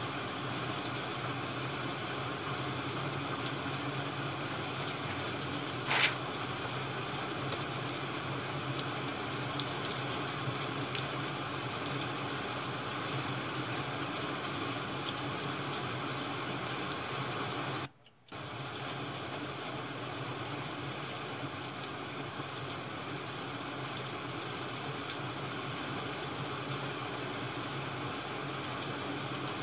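Rain-and-crackling-fire ambience: a steady rush of rain noise with scattered sharp crackles and one stronger pop about six seconds in. The sound drops out for a split second about eighteen seconds in.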